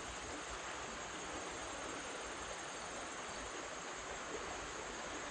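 Steady rush of water flowing in a shallow, rocky trout stream.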